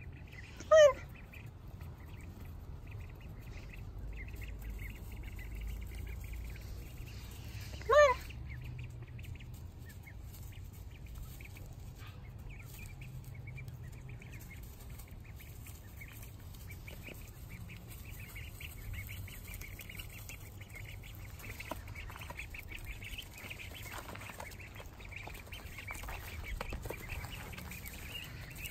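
Juvenile ducklings (Pekin and others) calling. Two loud, short, high peeps come about a second in and about eight seconds in, and soft, steady peeping runs on through the second half.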